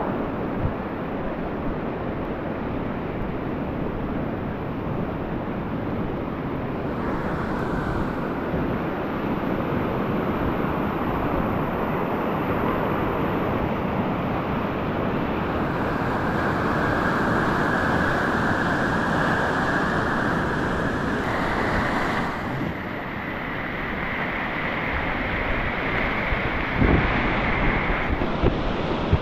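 Rushing whitewater in a man-made rapids channel, a steady churning noise, with wind noise on the microphone. A few dull thumps near the end.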